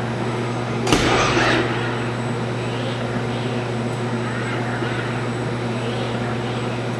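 Industrial painting robot arm moving along a louver: its servo motors whine up and down over a steady machine hum. A short hiss with a click at its start comes about a second in.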